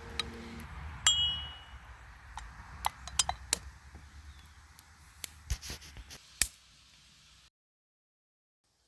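A single clear ringing ding about a second in, followed by a scatter of light clinks and taps of small hard objects, before the sound cuts off suddenly.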